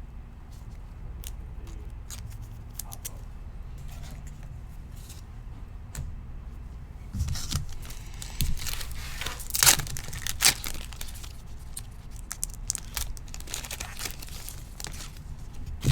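A trading card pack being torn open and its wrapper crinkling, with small clicks and rustles as the cards are handled. The loudest tearing and crinkling comes in a cluster about seven to eleven seconds in.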